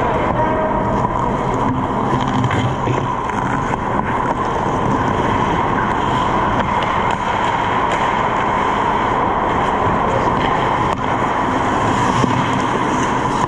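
Steady loud noise of ice hockey play on an indoor rink, with skates on the ice and a few sharp clicks of sticks and puck, the loudest near the end.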